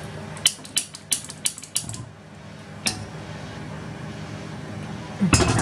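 Hand-held piezo spark lighter clicking at a gas hob burner: a quick run of about seven sharp clicks, then one more about a second later, as the burner is lit.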